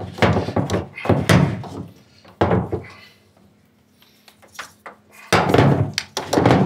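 A coiled cable and its plastic connector knocking and scraping against corrugated metal wall cladding while being tucked in behind a microinverter: a series of dull thunks, sparse at first, then a busier, louder clatter about five seconds in.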